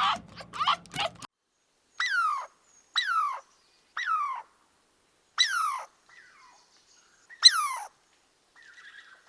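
Animal calls: first a quick run of short chirping calls, then five separate high calls, each falling in pitch and spaced about a second apart.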